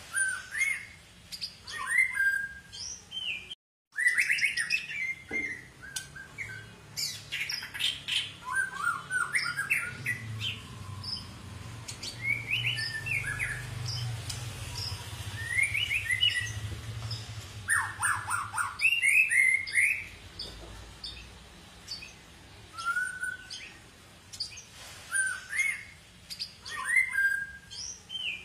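White-rumped shama (murai batu, long-tailed Medan type) singing: a varied run of clear whistled phrases, sliding notes and quick chirps, separated by short pauses. The sound cuts out completely for a moment about four seconds in.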